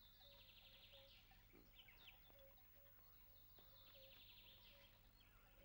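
Faint birdsong: a rapid high trill near the start and again about four seconds in, with short soft notes repeating lower down, over a steady low hum.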